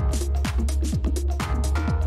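Electronic background music with a fast steady beat of deep kick drums and heavy bass.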